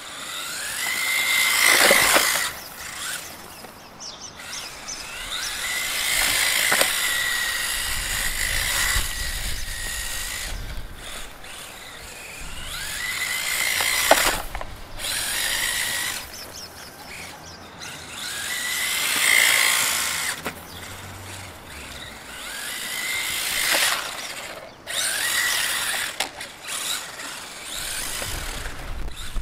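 ZD Racing EX-16 1/16-scale RC drift car's brushless motor whining under repeated bursts of throttle. The high pitch rises and falls as it speeds up and slows about every few seconds, over a hiss from the tyres on stone paving.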